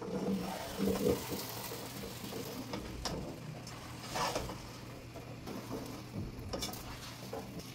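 A spatula stirring and scraping in a pot of sizzling masala, knocking against the pot now and then.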